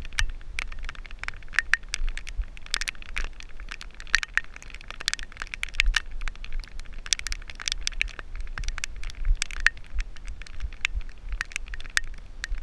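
Irregular crackling and scraping from a harness-mounted camera on a dog's back as the dog moves about: fur and straps rub and knock against the camera housing, over a steady low rumble of jostling and wind on the microphone.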